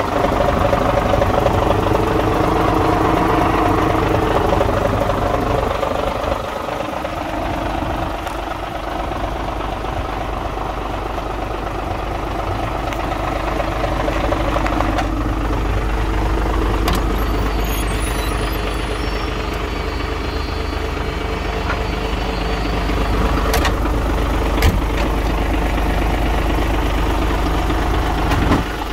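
Scania P93 ML truck's 9-litre straight-six diesel idling steadily, with a short knock near the end.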